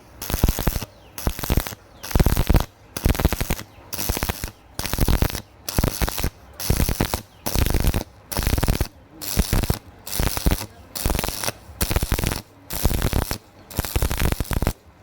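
Stick-welding arc crackling in short, regular stop-start bursts, about two a second: the arc is struck and broken again and again to lay stitch welds on thin galvanized metal without burning through. The bursts stop just before the end.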